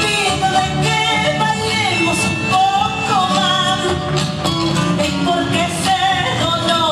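Latin American folk song played for a stage dance: a singing voice over guitar and other instruments, with a steady beat.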